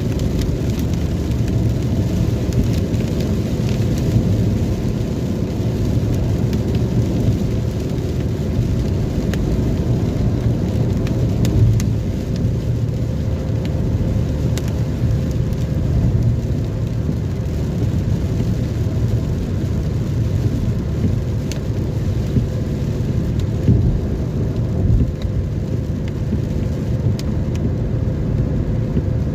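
Rain in a thunderstorm, with a steady low rumble under it and faint scattered ticks of drops.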